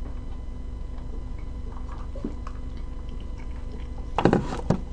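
A person eating: faint sipping through a straw, then chewing, over a steady low hum. A brief louder burst of sound comes about four seconds in.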